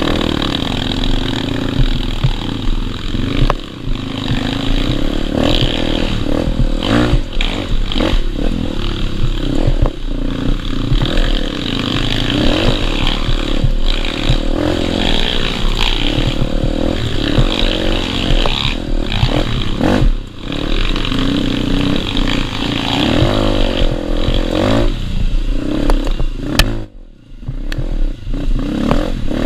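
Bored-out Honda CRF dirt bike's single-cylinder four-stroke engine revving up and down while riding over rough ground, with clattering and knocks from the bike. The engine note drops away briefly a little before the end, then picks up again.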